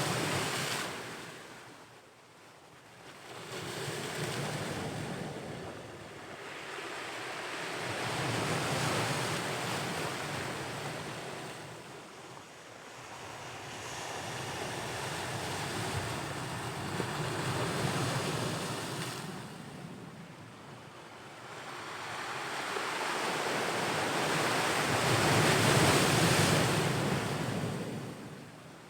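Ocean waves breaking and washing on the shore, the surf swelling and fading in slow surges every several seconds, with the loudest wave near the end. Some wind buffets the microphone.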